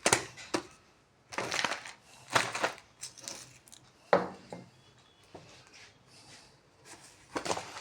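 Books and papers being handled and shuffled: several short bursts of rustling and crinkling with brief gaps between them.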